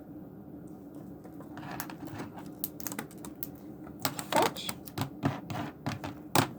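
Light, irregular clicks and taps on a hard surface as a cockatiel picks up and handles its small fetch toy with its beak. They end in a louder knock just before the end.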